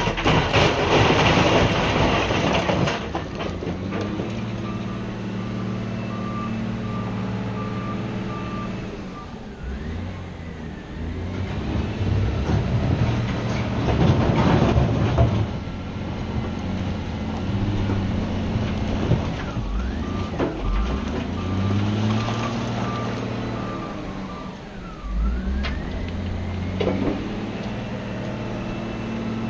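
Cat 966G wheel loader's diesel engine running and revving as it works, with its reversing alarm beeping steadily in two spells. Heavy crashes of stone being dumped or dropped come near the start and again about halfway through.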